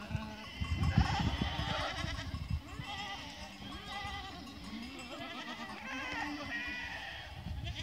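A herd of goats bleating, many calls overlapping one another without a break: mother goats and kids calling to find each other at suckling time.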